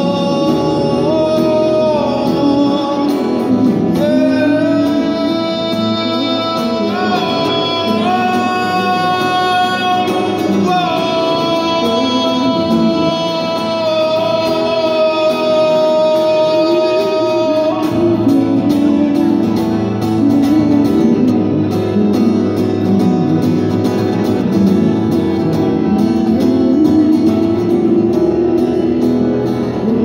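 A man singing with a strummed steel-string acoustic guitar, holding long notes. About eighteen seconds in the voice stops and the guitar strumming carries on alone.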